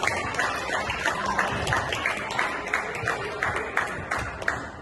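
A few spectators clapping by hand: quick, irregular claps that thin out near the end.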